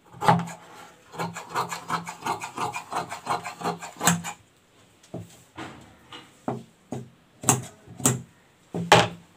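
Large tailoring shears cutting through cloth laid on a table: a quick run of short snips for about three seconds, then a string of separate, sharper snips about half a second apart.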